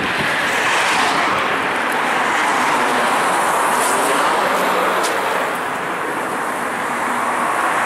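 Steady road and wind noise of a Mercedes-Benz 208 D van on the move.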